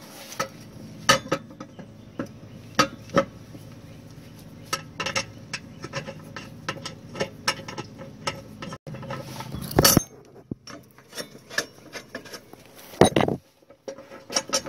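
Steel mower blade clinking and tapping against the deck spindle and its star washer as it is worked into place by hand: irregular light metal clicks, with a louder knock about ten seconds in and another near the end.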